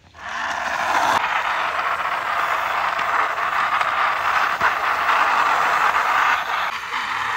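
Plastic wheels of a toy double-decker bus rolling along a rough concrete wall as a hand pushes it, a steady rolling noise that starts suddenly.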